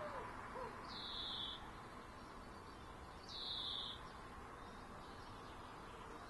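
A bird gives a short high call twice, about two seconds apart, each call dropping sharply and then holding level. A few low, arched notes from another bird come right at the start, over a steady hum of far-away traffic.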